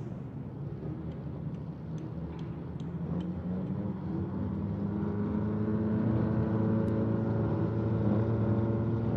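Pre-war Mercedes-Benz Grand Prix car's engine running at a steady idle. It comes in about halfway through over a general outdoor rumble and grows louder toward the end.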